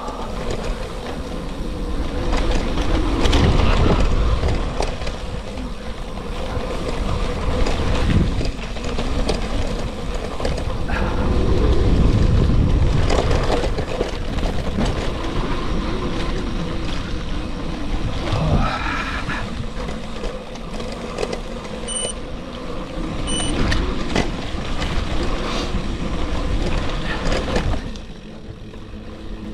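Bicycle tyres rumbling and rattling over a gravel road, with wind buffeting the microphone. Late on come two short high beeps.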